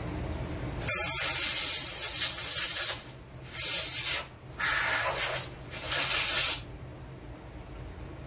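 Compressed-air blow gun on a red air hose hissing in four blasts, a long one and then three shorter ones, blowing metal chips off a milling vise and table.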